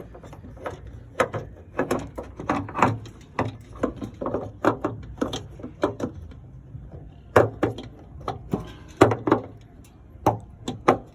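Irregular hard knocks and clicks, several a second, as a replacement fuel filler door lock actuator is handled and pushed against its mounting hole.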